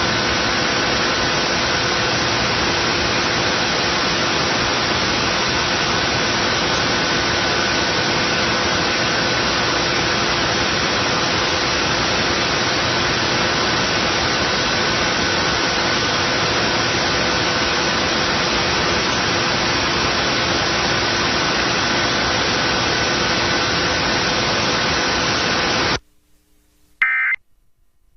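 Loud, steady static hiss with a few faint steady tones running through it: the noisy audio of the 2011 national Emergency Alert System test as carried on AM radio. About two seconds before the end the hiss cuts off suddenly, followed by a short high-pitched warbling burst of EAS end-of-message data tones.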